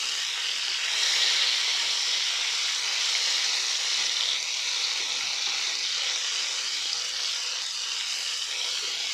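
Thin, coated chicken steaks sizzling steadily in hot olive oil in a frying pan, the sizzle swelling slightly about a second in.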